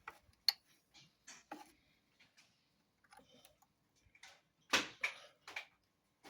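Hand tools being handled: scattered metallic clicks and clinks, with a short burst of louder rattling and scraping about five seconds in.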